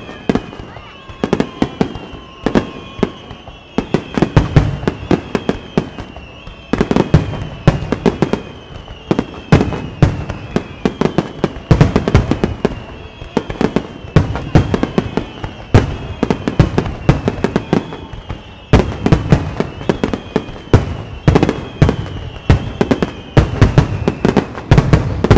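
Aerial fireworks bursting in rapid volleys: dense strings of sharp reports in clusters every couple of seconds, over a faint high falling tone that repeats throughout.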